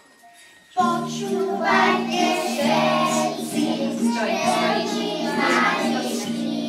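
Recorded music starts suddenly about a second in, and a group of young children sing along with it.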